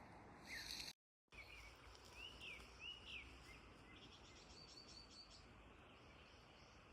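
Faint rural outdoor ambience with a few birds calling. There are several arched chirps about two to three seconds in, then a quick run of short high notes near the middle. The sound drops out completely for a moment about a second in.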